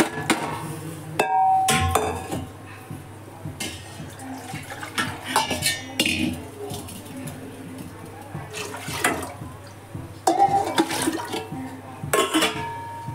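Soaked lentils and water poured from a steel bowl into an aluminium pressure cooker: splashing with knocks and clinks of metal on metal, one ringing clink a little over a second in.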